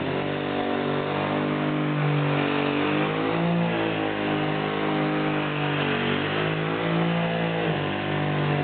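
Hutchins pneumatic orbital longboard sander running steadily while wet-sanding primer surfacer with 320-grit paper, its pitch dipping and recovering a few times as it is worked over the panel.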